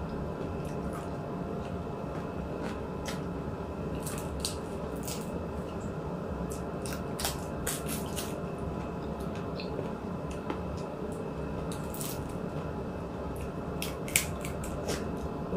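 Close-up eating sounds: scattered wet smacks and clicks of chewing fried tilapia, over a steady low background hum.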